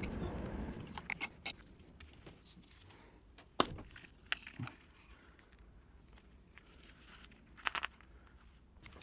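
Scattered metallic clinks and knocks as the metal starter cup and flywheel parts of a Chaika ML-20B outboard motor are handled and lifted off, with the loudest clinks near the end.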